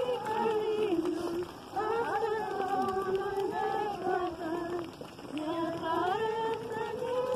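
A crowd of pilgrims singing a slow religious hymn together in unison, in long held phrases with short pauses for breath between them.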